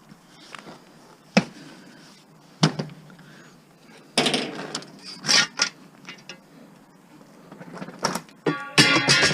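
Scattered knocks and clanks of scrap metal parts being handled while an appliance is dismantled, a few sharp hits spread out, then a busier clatter about halfway through. Near the end a short clatter of metal with a ringing tone.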